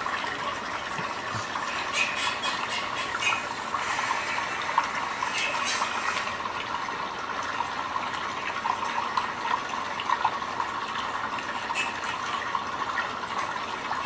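Steady sound of running, trickling water from a bamboo water-fountain video playing on the computer, with a few short sharp clicks scattered through it.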